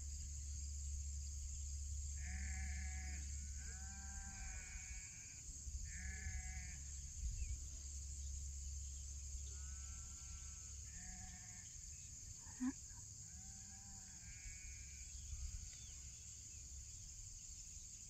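Sheep in a flock bleating, about ten short quavering bleats from several animals spread across the few seconds, some overlapping.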